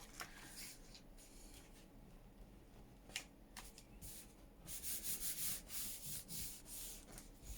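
Hand rubbing over paper. A few faint rustles come first, then from about halfway in a quick run of brushing strokes.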